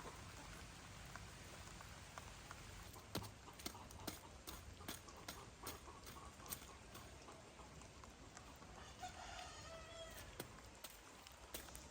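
A rooster crowing once, faint, about nine seconds in, over a scattering of light sharp clicks or taps.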